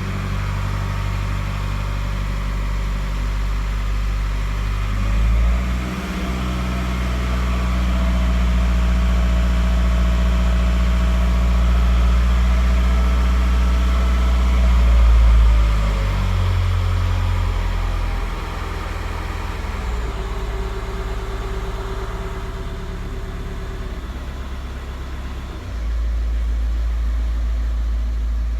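Škoda Octavia A5's four-cylinder 1.9 TDI unit-injector (pump-nozzle) diesel engine running, its speed shifting a few times. The engine has a knock.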